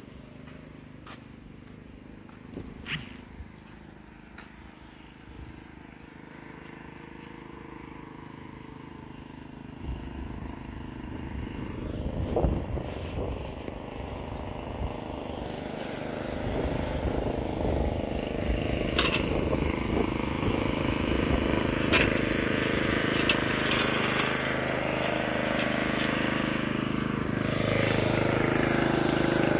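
Petrol walk-behind lawn mower engine running while mowing, growing steadily louder as it comes closer and loudest near the end.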